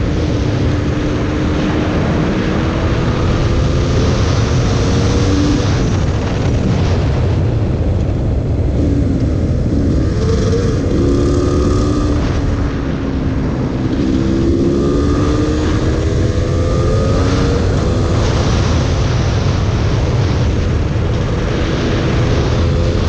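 GasGas EC300 two-stroke dirt-bike engine under way, its revs climbing and dropping repeatedly with throttle and gear changes: they fall off about eight seconds in, then rise again a few seconds later. Heavy wind rush on the microphone underlies the engine.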